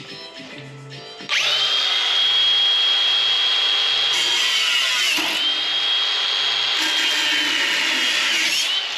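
A power cutting tool starts about a second in and runs with a steady high whine as it cuts sheet steel. Its pitch dips briefly in the middle and again near the end, as if under load.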